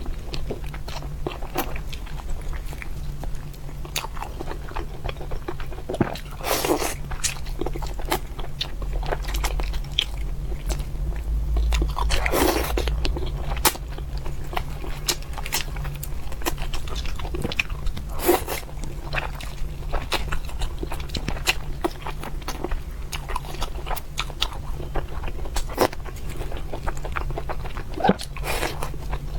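A person eating braised fish close to the microphone, chewing and biting with many short crunchy clicks and a few longer, louder bites, over a steady low hum.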